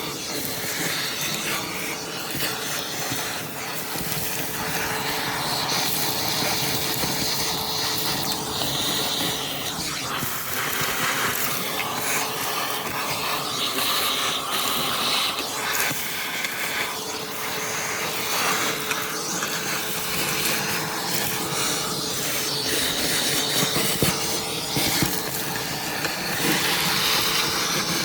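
Shop vacuum running steadily, its motor holding one even tone under a changing hiss as it sucks up debris.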